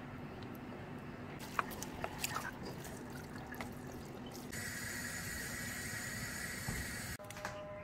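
Instant noodles being mixed in a steel pot: wet stirring with a few light clicks of wooden chopsticks against the pot, then a steady sizzle as the sauced noodles stir-fry for a few seconds from about halfway through.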